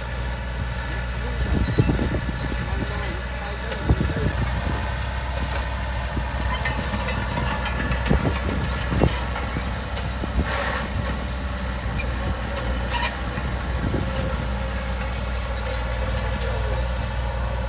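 A heavy diesel earthmoving machine's engine running steadily at a low pitch, with scattered sharp metallic knocks and clanks, the loudest about two and four seconds in.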